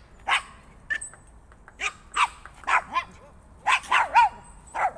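A dog barking repeatedly, about two barks a second, some in quick pairs.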